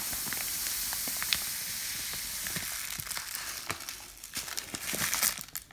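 Dry fine bulgur pouring from a plastic bag into a plastic storage canister: a steady grainy hiss that thins out and fades about three to four seconds in as the bag empties, followed by a few crinkles of the plastic bag near the end.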